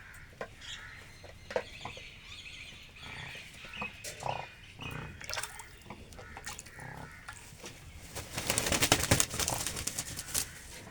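Crane bathing in water: scattered small splashes, then a loud burst of rapid splashing and wing-beating lasting a couple of seconds, about eight seconds in. Faint bird calls are heard before it.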